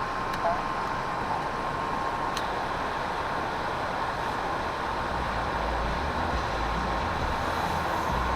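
Steady mechanical running noise with a constant high tone, and a low rumble that grows stronger about five seconds in.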